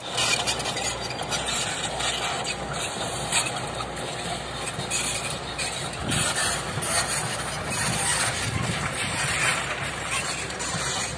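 Diesel engine of a Hitachi hydraulic excavator running steadily some way off, under a steady rushing hiss.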